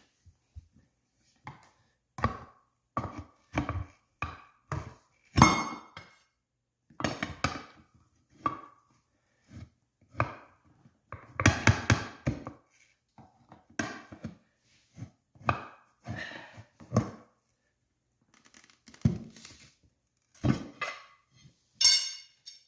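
Tire spoons clanking and scraping against the wheel rim as the tire bead is levered over the lip: irregular knocks and metallic clinks, some ringing briefly.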